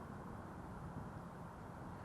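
Faint, steady outdoor background noise with no distinct event.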